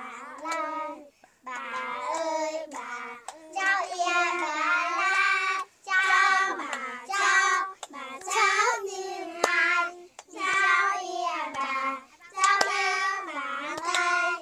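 Young children singing a song together in unison, phrase after phrase with short breaths between the lines.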